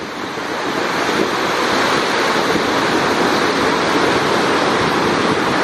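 Steady rushing of a waterfall and whitewater river.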